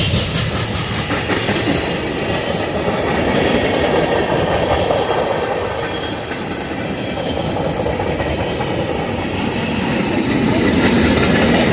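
Freight train cars rolling past at close range: steady wheel-on-rail noise that eases a little midway and swells again near the end.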